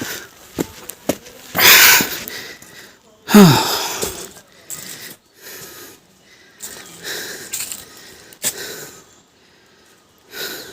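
A person breathing hard, out of breath from walking uphill: a string of loud, noisy breaths, one with a short falling voiced sound about three and a half seconds in.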